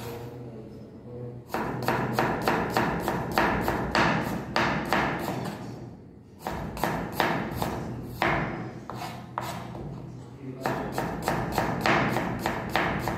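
Chef's knife slicing an onion on a wooden cutting board: quick, even strokes knocking on the board at about three a second. The strokes come in three runs, starting about a second and a half in, with short breaks about 6 s and 10.5 s in.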